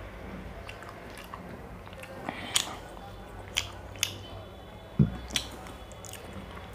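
Close-up mouth sounds of eating chocolate-coated ice cream bars: wet chewing and about six sharp lip smacks. The loudest smack, about five seconds in, comes with a soft thump.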